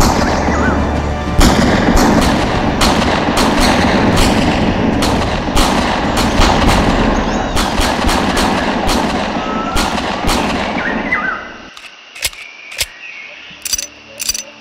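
A loud, dense barrage of gunfire and blast sound effects over music, with sharp shots cracking out two or three times a second. It cuts off suddenly about eleven and a half seconds in, leaving a quieter bed with a few scattered clicks.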